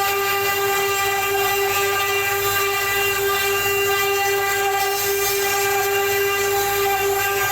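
CNC wood-carving router running, its spindle giving a steady whine with several overtones over a light hiss.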